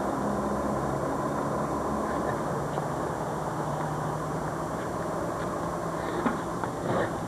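Steady road and engine noise of a car being driven, heard from inside the cabin, with a low engine hum.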